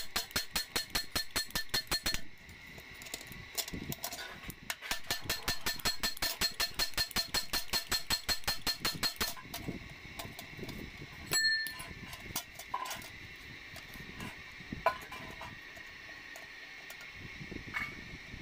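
Steel bucket ringing under fast, evenly spaced metallic clicks, about five a second, in two runs while the bolts of its new handle bracket are worked with a hand tool; then a few separate metal clinks.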